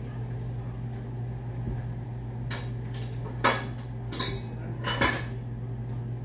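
Dishes clinking as washed bowls and a glass are set into a dish rack: four sharp knocks, the loudest about three and a half seconds in, over a steady low hum.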